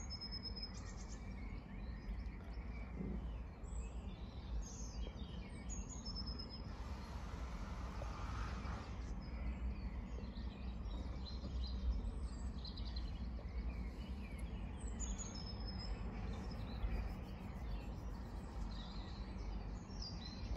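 Quiet outdoor ambience: a steady low rumble with a few short, high bird chirps now and then.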